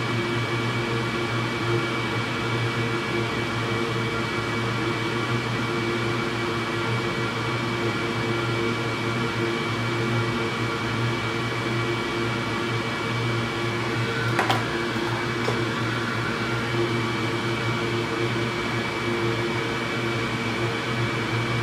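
A steady mechanical hum with several held tones, the sound of a running fan or motor, with one short click about fourteen and a half seconds in.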